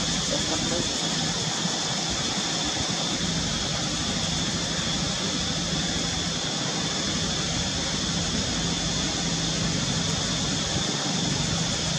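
Steady outdoor background drone: a continuous high hiss-like whine over a low steady hum, with no distinct calls or knocks standing out.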